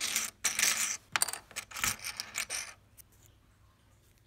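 Coins clattering into the coin slot of a toy cash register: a run of rattles and clicks lasting nearly three seconds, then quiet.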